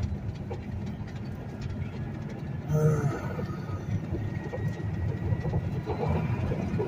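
Inside a semi truck's cab while driving slowly: a steady low engine and road rumble with constant small rattles and clicks, and a short squeak about three seconds in.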